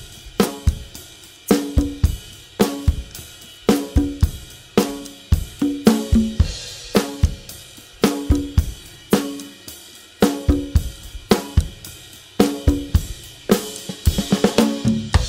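Drum kit with steelband engine-room percussion playing a steady groove. No pans or melody are heard. A flurry of quick strokes comes near the end, at the turn into the next section.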